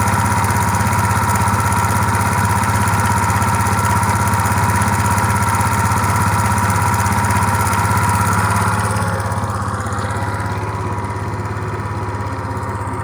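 Suzuki Let's 5 50cc four-stroke scooter engine running steadily with a whining tone. This is the abnormal engine noise the scooter is known for. About nine seconds in the sound grows quieter.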